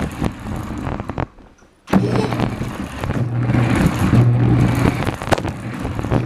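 RC car driving, heard from a GoPro mounted on it: a loud, constant rattling noise full of sharp knocks. It drops out briefly about a second in, then returns with a steady low hum underneath.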